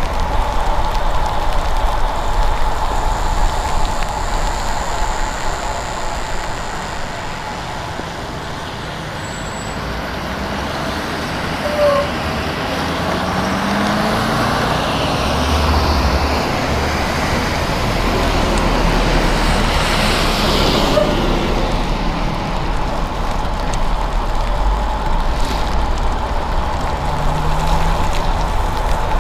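Steady road noise of a bicycle ride in the rain: tyres hissing on wet pavement and air rushing past, with motor traffic on the road. The noise swells in the middle as traffic passes.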